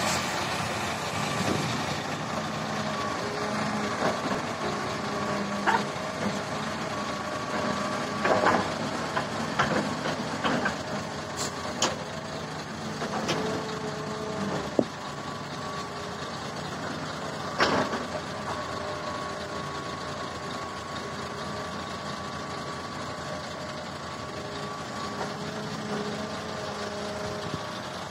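Hitachi ZX350-5G hydraulic excavator running steadily under work, its diesel engine and hydraulics making a steady drone with a faint whine, while it digs and swings. Scattered sharp knocks and clunks from the bucket and dirt come through in the first half or so.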